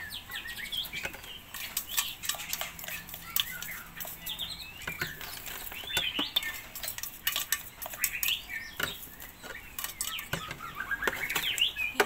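A spoon scraping and knocking blended food out of a stainless-steel grinder jar, in many quick clicks and knocks, while caged birds chirp in short rising and falling calls.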